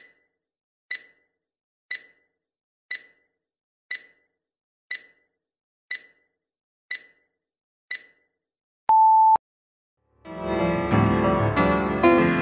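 Quiz countdown timer ticking once a second, nine sharp ticks, then a single steady beep about half a second long as time runs out. About a second later, music starts.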